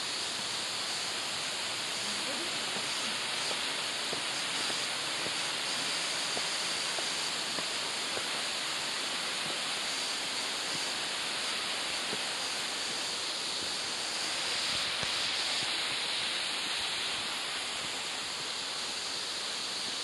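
A waterfall's steady rushing: an even, unbroken hiss of falling water.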